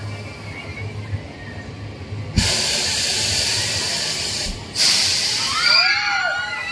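A thrill ride's air cylinders venting in a loud, sudden hiss as the ride's arms lower. The hiss runs about two seconds, stops briefly, then hisses again for about a second. Near the end, riders' voices call out in rising and falling shrieks.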